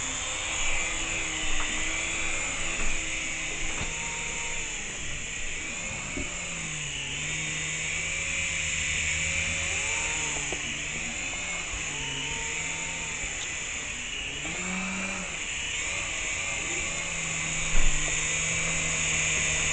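Small radio-controlled helicopter's motor and rotors running with a steady high whine, some of its tones gliding up and down in pitch several times.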